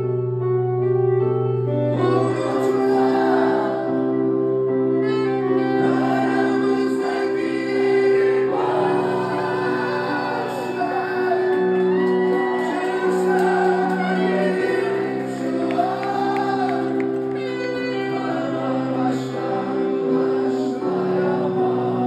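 A man singing live into a microphone over held chords played on a Korg stage keyboard. The voice comes in about two seconds in, after a few seconds of keyboard alone.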